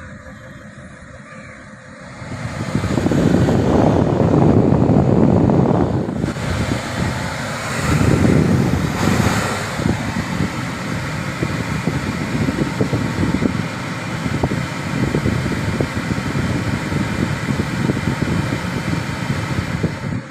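BMW 530d climate-control blower fan running with a loud air rush, a noise the owner calls abnormal. It swells up about two seconds in, surges again a few seconds later, then holds steady.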